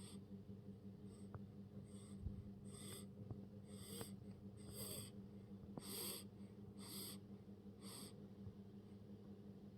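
Baby snoring: faint, wheezy breaths about one a second, building to their loudest around the middle and dying away after about eight seconds.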